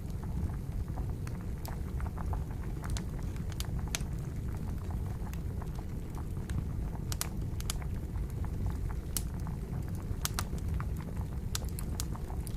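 Wood campfire crackling with sharp, irregular pops over the steady low bubbling of water at a boil.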